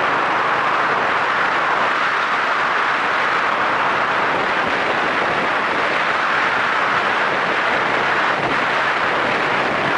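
Yamaha SRX400 motorcycle under way at a steady speed: an even rush of wind and road noise, with no change in pace or pitch.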